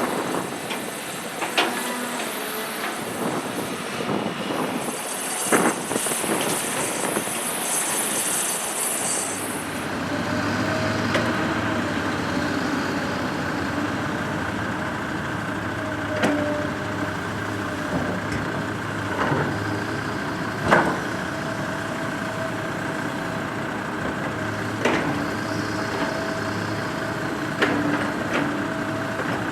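Heavy construction machine's diesel engine running, with scattered clanks and knocks. A high hiss sounds for a few seconds in the first third, and from about ten seconds in the engine runs at a steady pitch.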